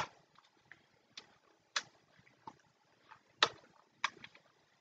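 Irregular plastic clicks and taps from handling a toy crossbow as darts are pushed into the dart holder on it, a few sharp clicks standing out among fainter ticks.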